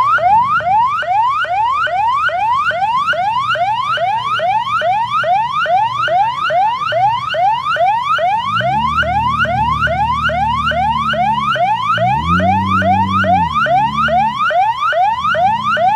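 Electronic siren or alarm sounding rapid rising whoops, about three a second, starting and stopping abruptly. A low engine note swells twice under it in the second half.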